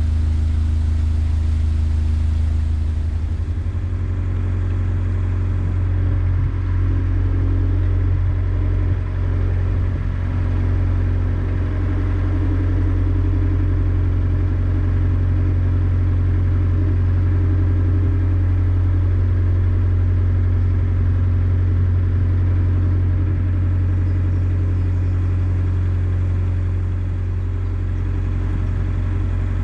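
Narrowboat's diesel engine running steadily while cruising, a deep even drone.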